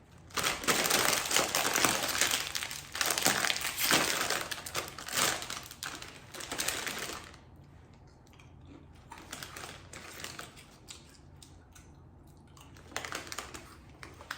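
Crisp protein chips crunching and their snack bag crinkling, dense and loud for the first several seconds, then quieter, scattered chewing crunches.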